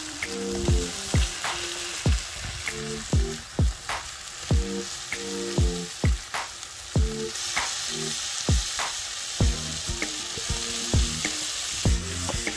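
Chicken pieces and spice masala sizzling in hot oil in a kadhai, with a spoon stirring them near the end. Background music with a steady beat plays over the sizzle.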